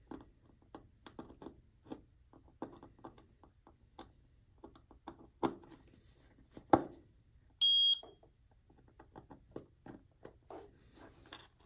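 Small clicks and taps of jumper wires being pushed into and pulled from a solderless breadboard, with a couple of louder knocks. A bit after the middle, a Plusivo digital multimeter's continuity buzzer gives one steady high beep of about half a second, the sign that the two probed holes share a current path.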